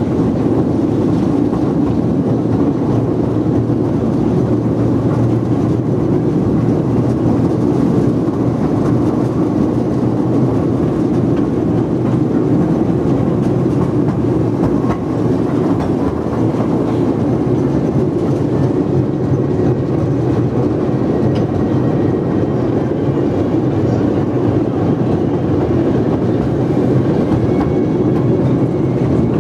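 Narrow-gauge park steam train heard from aboard a moving carriage: a steady rumble of wheels running on the rails.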